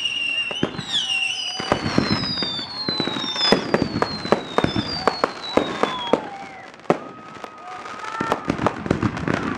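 Aerial fireworks going off: a rapid run of pops and crackling bursts, with several falling whistles over the first six seconds. There is a brief lull about seven seconds in before the pops pick up again.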